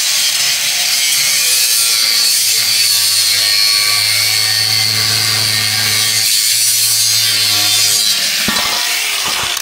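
Electric angle grinder cutting through the steel wall of an old propane tank: a steady high motor whine over the disc grinding on metal. Near the end the cut lets up and the sound drops, with a couple of sharp clicks.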